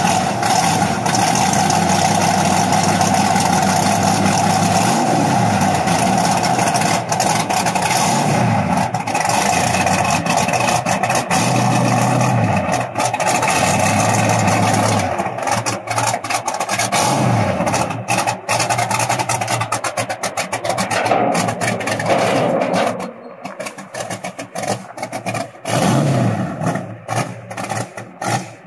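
V8 engine swapped into a small vintage farm tractor, running and being revved in short blips every few seconds. It drops quieter near the end as the tractor pulls away.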